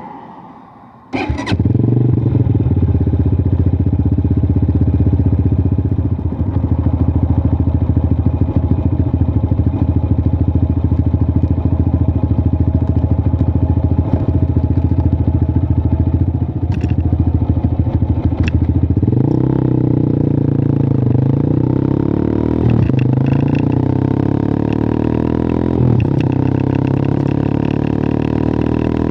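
WMOTO Hawk 200i motorcycle engine starting suddenly about a second in and settling into a steady idle. About 19 s in its note changes, with the pitch rising and falling slowly.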